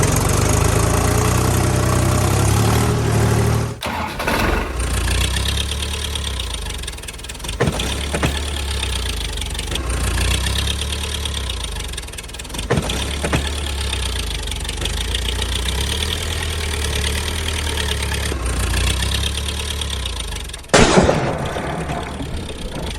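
Engine running at idle, a steady low rumble, with abrupt jumps in the sound about four seconds in and again near the end.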